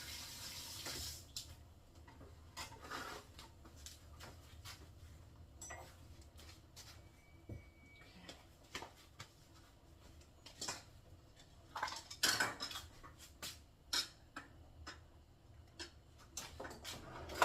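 A kitchen tap running that shuts off about a second in, then scattered clinks and knocks of pots, dishes and utensils being handled.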